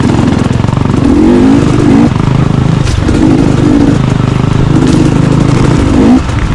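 Enduro dirt bike engine running hard, the revs rising and falling in stretches as the throttle is opened and shut, with a brief drop about six seconds in.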